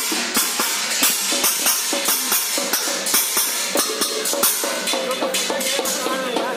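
Steel plates (thalis) and other metal utensils being beaten: a rapid, fairly rhythmic clatter of metal strikes with ringing overtones. A held ringing tone joins near the end.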